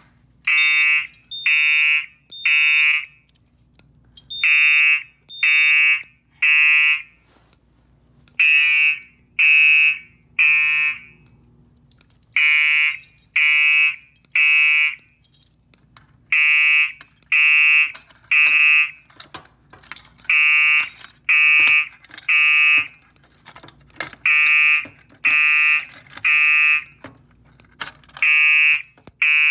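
Fire alarm horn driven by an EST Fire Shield panel, sounding the temporal code 3 evacuation pattern: three short blasts, a pause, then the three again, repeating steadily and loudly.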